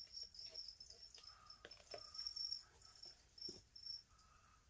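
Faint cricket chirping in short spells of a high, steady trill, with a few soft taps of plastic deli cups being handled.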